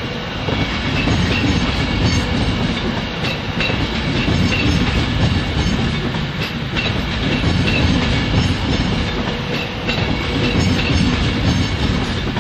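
Class 390 Pendolino electric train rolling out of the station, its wheels clattering over rail joints and points in an uneven clickety-clack.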